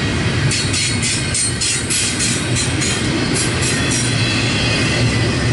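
Double-stack intermodal freight train rolling past, a steady rumble of container well cars on the rails. A run of sharp high clicks, about four a second, comes in about half a second in and stops about four seconds in.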